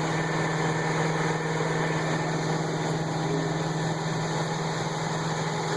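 Berco cylindrical grinder running with a steady hum, its grinding-wheel motor up to speed.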